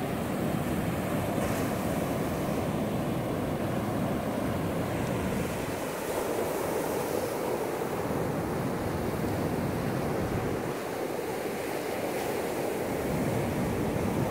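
Ocean surf breaking and washing up a sandy beach: a steady, continuous rushing wash of small waves.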